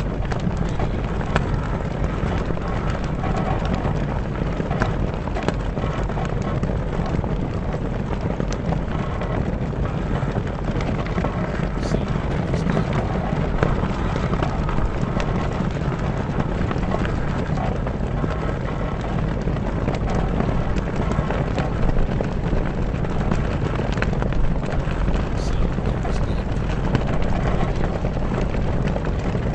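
Sail cloth flapping and fluttering steadily in strong wind, with a ship's mast creaking.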